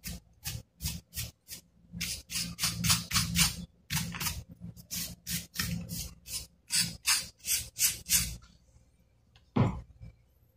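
Brush bristles scrubbed in quick back-and-forth strokes over the inside of an open laptop, about three strokes a second, cleaning dust off the board and drive bay. The brushing stops about 8 s in, and a single knock follows near the end.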